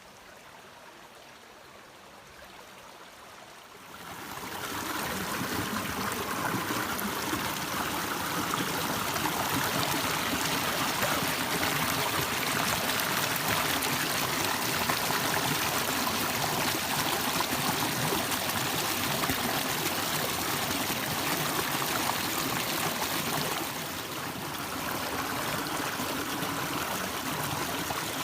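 River water flowing over a shallow rocky bed, a steady rushing that is faint at first and becomes much louder about four seconds in.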